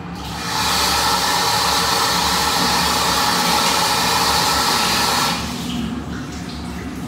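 Tap water running into a bathroom sink, a steady splashing rush that starts about half a second in and stops abruptly about five seconds in.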